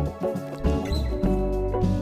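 Background music: pitched instrumental notes that change every fraction of a second over a steady bass line.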